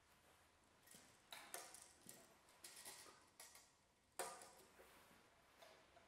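Faint, irregular clicks and light knocks, the loudest about four seconds in, from timber boards and a tape measure being handled on a workshop table.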